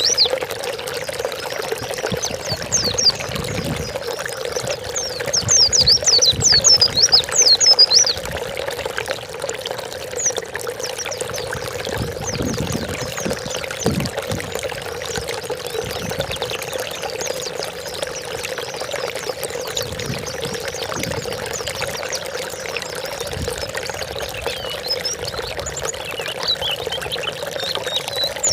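Pleci (white-eye) song: fast, high, twittering chirps in rapid bursts, strongest from a few seconds in to about eight seconds in and faint again near the end. Under it runs a steady sound like pouring or trickling water.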